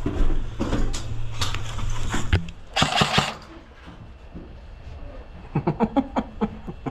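Sharp clicks and knocks of airsoft play, with a brief noisy burst midway and a quick run of about eight sharp cracks near the end, fitting airsoft gun fire.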